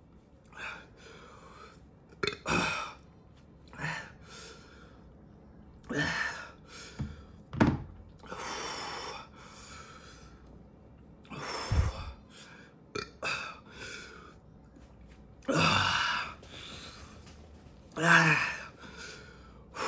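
A man's pained breathing and vocal noises in short bursts every second or two: sharp gasps, blowing exhales and strained groans, his reaction to the burn of a super-hot pepper chip.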